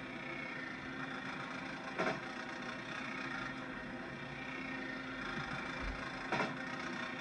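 A steady low machine hum with a faint mechanical whir, broken by two sharp knocks, one about two seconds in and one near the end.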